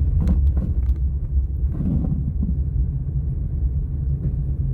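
Steady low rumble of a car driving, heard from inside the cabin, with a few brief knocks near the start and a short rough patch about two seconds in.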